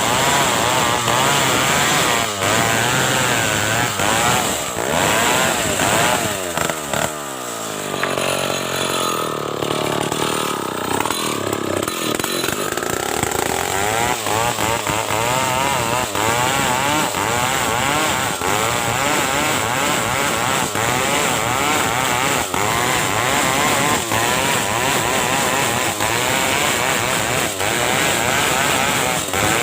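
Stihl chainsaw running hard while ripping a large ulin ironwood log lengthwise into boards. About seven seconds in, the engine speed drops briefly, then climbs back up to full revs in the cut.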